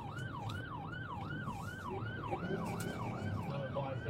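Police car siren on a fast yelp, sweeping up and down about twice a second, over the low rumble of the vehicle driving.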